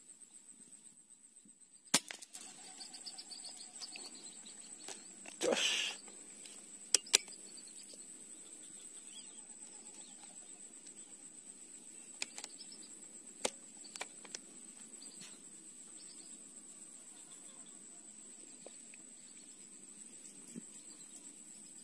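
Steady high-pitched drone of crickets or other insects over a marsh, broken by a few sharp clicks: a loud one about two seconds in, a pair about seven seconds in, and fainter ones later, with a brief burst of noise in between.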